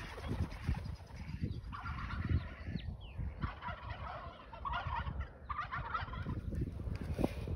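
Domestic ducks calling in several raspy bursts of chatter, over a low rumble of wind on the microphone.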